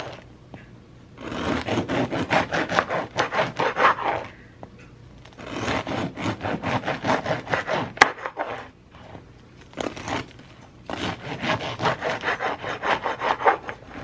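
Serrated bread knife sawing through a homemade loaf's hard, well-baked crust on a wooden cutting board, in runs of quick back-and-forth strokes with short pauses between slices. There is a single sharp tap about eight seconds in.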